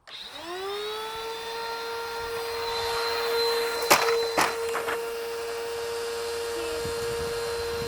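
Vacuum cleaner switched on: the motor whine rises over about a second as it spins up, then holds steady with a constant rushing noise. Two sharp clicks come about four seconds in.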